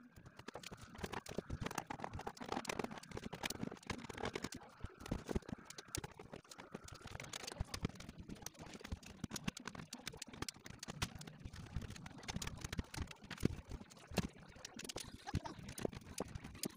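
Dense small clicks, taps and scrapes of screws, a screwdriver and plastic parts as the plastic cabinet of a portable cassette radio is unscrewed and taken apart. A faint steady high tone sounds underneath for the first several seconds.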